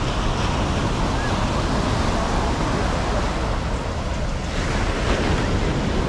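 Ocean surf washing onto the beach, a steady rush of waves that swells louder about four and a half seconds in, with wind rumbling on the microphone.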